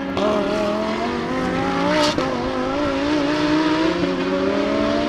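Lamborghini Huracán GT3 race car's 5.2-litre V10 engine running through a corner. Its pitch wavers, then rises slowly as it accelerates out, with one short crack about two seconds in.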